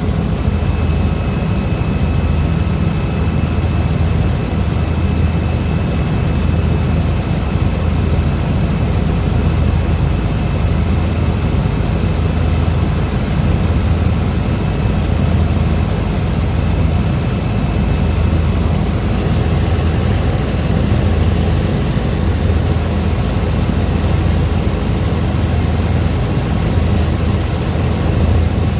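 Helicopter in flight, heard from inside the cabin: a loud, steady rotor and engine drone with a low rhythmic throb. A thin high whine over it fades out about two-thirds of the way through.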